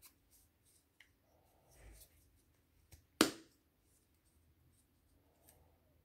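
A Liebherr ignition switch being handled by hand: faint rustling and a few soft clicks, with one sharp, loud click a little past three seconds in.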